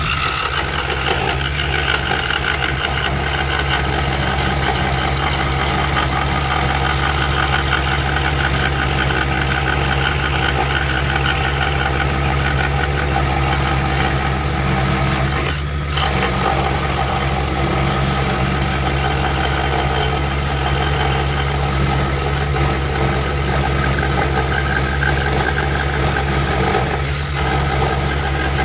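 Woodstar SD 16 scroll saw running steadily, its reciprocating blade cutting a wooden board, with a constant motor hum.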